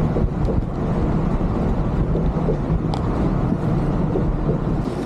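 Steady low rumble of engine and road noise inside the driver's cab of a Volvo B11R coach cruising on a highway, with a brief tick about three seconds in.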